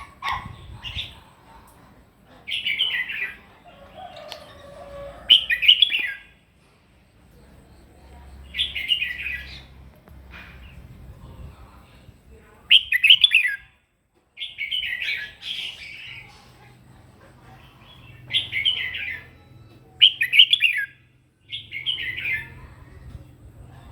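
Red-whiskered bulbul singing its challenge song: about nine short, bright, warbling phrases with pauses of one to four seconds between them.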